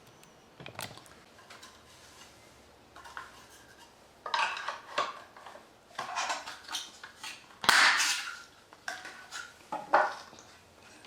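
Hard plastic parts of a monitor stand being handled and fitted together: irregular clattering and knocking, loudest a little past the middle.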